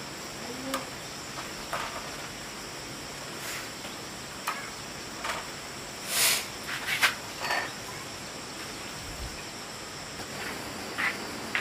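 Steady high chirring of insects, with scattered light knocks and clicks and a brief rustle about six seconds in.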